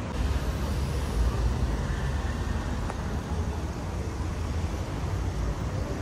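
Street noise with road traffic going by: a steady low rumble and hiss of passing cars.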